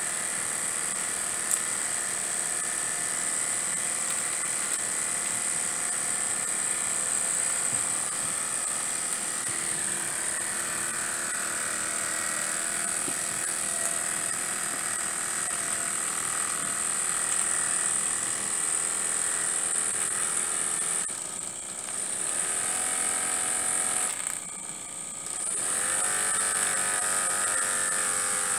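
Small model horizontal mill steam engine running fast on steam from its boiler: a steady rapid whirring with a high steady hiss over it. Near the end the sound dips briefly twice, then the running picks up speed again.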